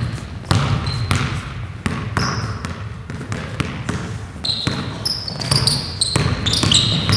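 Basketball dribbling on a hardwood gym floor, repeated bounces, with short high sneaker squeaks as players cut and drive, more of them in the second half.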